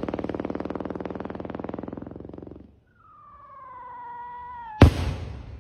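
Firework strobe rocket: a rapid buzzing stutter that fades out over the first few seconds, then a whistle sliding slowly down in pitch for nearly two seconds. The whistle ends in a single sharp bang about five seconds in, the loudest moment.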